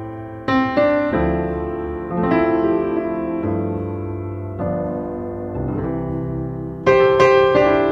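Background piano music: slow chords, a new one struck about every second, each ringing and fading before the next.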